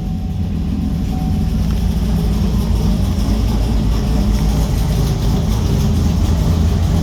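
Cammed Chevrolet 5.3-litre V8 idling steadily with a lope, with a lifter tick tapping away in time with the engine: the sign of a failing lifter, which the owner plans to cure with new cam and lifters.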